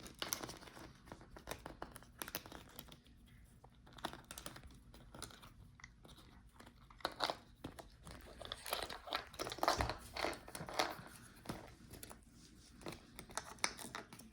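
Small plastic parts clicking and crinkling as a laptop's speaker assembly is unclipped, its cable disconnected and the speakers lifted out of the chassis. The clicks come irregularly, with a busier, louder run around the middle.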